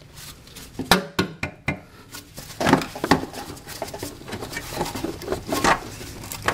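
Scattered knocks, clicks and rattles as the battery tray is handled and tugged in a car's engine bay; it won't come out, still held by a hidden bolt.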